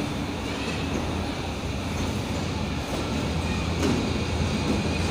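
Passenger train's coaches rolling past as it pulls out of the station, a steady low rumble of wheels on rail.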